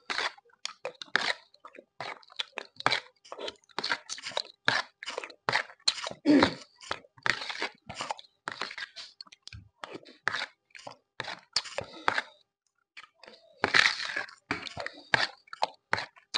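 Close eating sounds: a spoon scooping set red gelatin from a plastic bowl and wet chewing and slurping, in quick irregular clicks and smacks several times a second, with a break of about a second roughly three-quarters of the way through.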